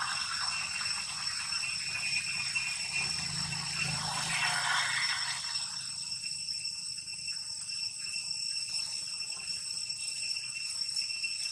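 Steady high-pitched drone of insects, several tones held at once, with a brief soft rustle about four to five seconds in.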